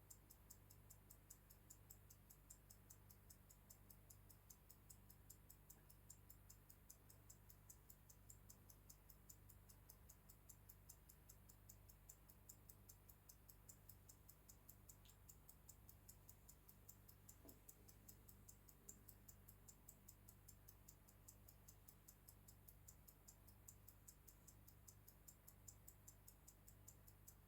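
Mechanical Swiss pocket watch ticking, faint, quick and even at about five ticks a second.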